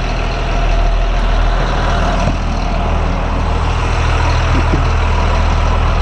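School bus's Cat C7 7.2-litre turbo diesel engine idling steadily.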